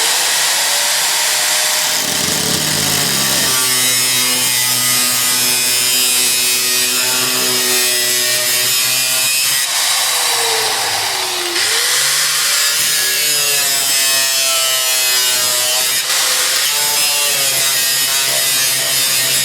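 Angle grinder with a cut-off wheel cutting into the sheet-metal floor of a 1980 Jeep CJ7, its whine sagging and recovering a few times as the disc bites into the metal.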